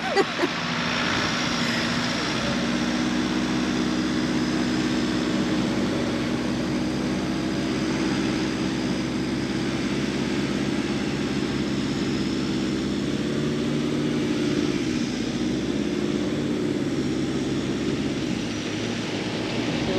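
A vehicle engine running with a steady drone, its pitch wavering slightly as the engine speed changes a little near the end.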